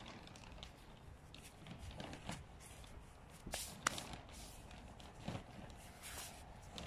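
Faint rustling and scattered small clicks of disposable-gloved hands handling a seedling and garden soil, with one sharper click a bit under four seconds in.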